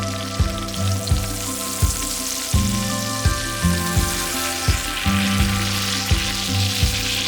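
Thick beef steak sizzling in a hot pan. Background music with a steady beat plays over it.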